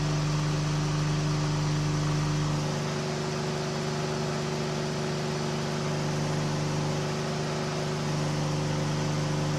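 KR2 light aircraft's engine and propeller droning steadily in flight, with a strong even hum; the low end eases slightly from about three seconds in and comes back near the end.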